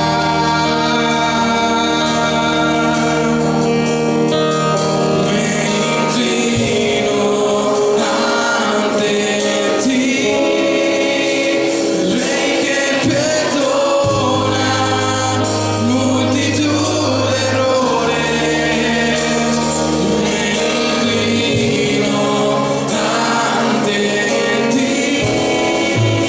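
A Christian worship song performed live: a man singing with electric guitar accompaniment, over low bass notes held for a few seconds each.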